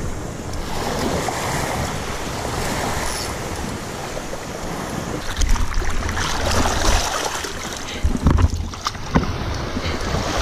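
Ocean surf washing steadily, with wind buffeting the microphone; the loudest moments are low gusts of wind on the microphone about five and eight seconds in.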